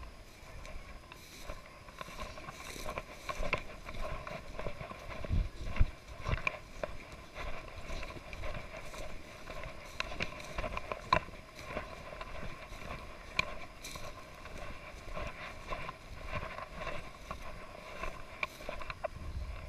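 Footsteps crunching and swishing through dry grass and brush at a walking pace, with irregular louder knocks.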